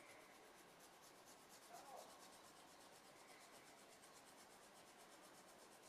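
Faint, quick, even strokes of a small hand file rubbing on a plastic model part, smoothing down a rough, uneven edge.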